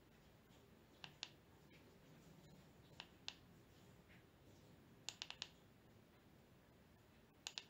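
Push-button switch of a battery-powered LED warning light clicking in quick pairs, double-clicks that switch its three white LEDs on and off. Faint sharp clicks come about every two seconds, with a run of three or four clicks twice.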